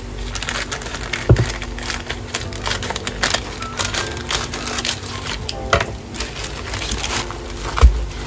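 Plastic courier mailer crinkling and rustling as it is handled and cut open with scissors, with irregular crackles throughout. Two dull knocks stand out, about a second in and near the end.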